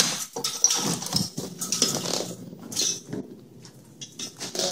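Horizontal window blind slats clattering and knocking as they are pushed aside and handled: a run of irregular light rattles and clicks that thins out in the second half.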